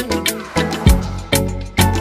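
Background music with a steady beat: drum hits about twice a second under sustained melodic notes.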